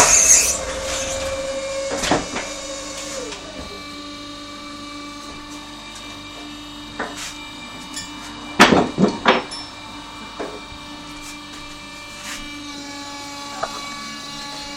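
Sike S-520 truck tyre changer running: a steady motor hum with faint whining tones, with a hiss fading at the very start. Sharp metal knocks come about two seconds in and twice more, louder, around nine seconds in.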